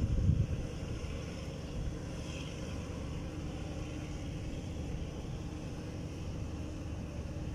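Wind buffeting the microphone: a steady low rumble, with a stronger gust right at the start, over a faint steady hum.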